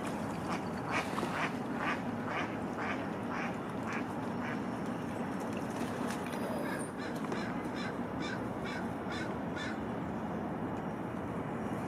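Repeated short animal calls in two bouts, about two a second, the first at the start and the second after about seven and a half seconds. A splash of water comes around six seconds in.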